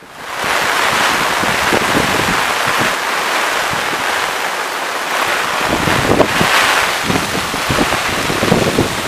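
Heavy rain pouring down in a steady hiss, with wind buffeting the microphone in irregular low rumbles, more often from about six seconds in.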